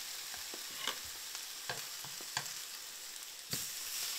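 Eggs and ham sizzling in butter in a frying pan, with a few light taps as the food is moved about in the pan. The sizzle gets louder about three and a half seconds in.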